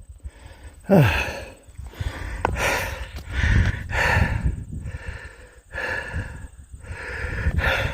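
A man breathing hard, heavy breaths about once a second from the exertion of hiking uphill, with a short falling groan about a second in.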